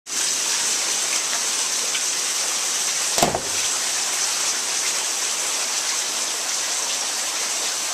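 Tropical-storm rain falling steadily, a dense even hiss, with a single thump about three seconds in.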